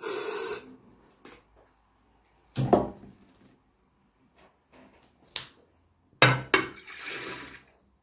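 Aerosol deodorant spray hissing into a glass jar, stopping about half a second in. Then come knocks of the glass jar and metal can being handled. About six seconds in there is a loud double clunk as the jar is set upside down in a glass dish of water, followed by a short hiss.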